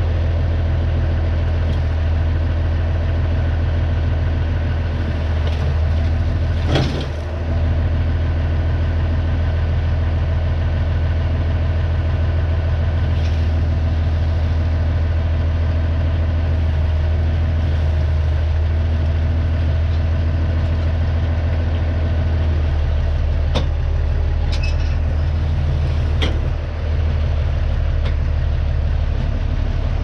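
John Deere 6506 tractor running at a steady speed while the slurry tanker fills through its suction hose, a loud constant drone with a deep hum. A few short knocks stand out, one about seven seconds in and two more near the end.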